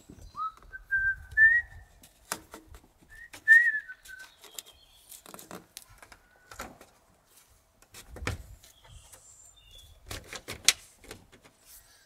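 Two short rising whistled phrases in the first four seconds. Scattered clicks and knocks of parts being handled in the engine bay run throughout, loudest in a quick cluster near the end.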